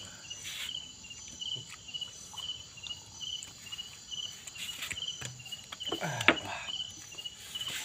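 Crickets chirping in a steady, even rhythm, about two chirps a second, with a fainter, higher insect call pulsing alongside. Scattered small clicks of eating and handling, and one sharp knock about six seconds in.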